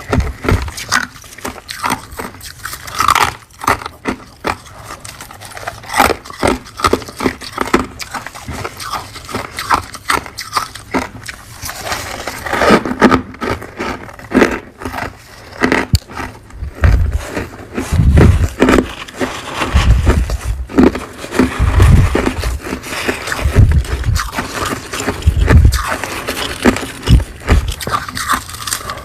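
A person biting and chewing crunchy frost close to the microphone: dense crackling crunches throughout, joined by deep, regular thuds of chewing in the second half.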